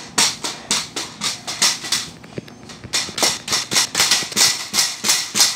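Pogo stick bouncing on a bare concrete floor: a quick, regular run of sharp springy clanks, about three a second, broken by a short pause midway before the bouncing resumes.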